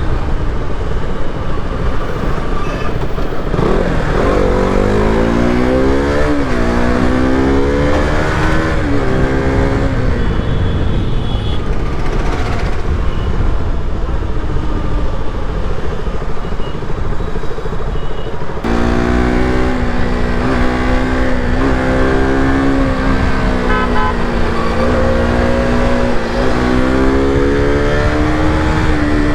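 KTM RC200's single-cylinder engine on the move, its pitch rising and falling repeatedly as the bike accelerates and slows, over steady wind and road noise. About two-thirds of the way through the sound changes abruptly to a steadier, lower engine note.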